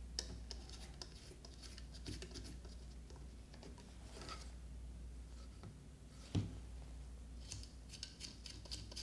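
Faint clicks and light scraping of a 3D-printed plastic part and small screws being handled and set on a desk, with a sharper knock about six seconds in and a run of small clicks near the end.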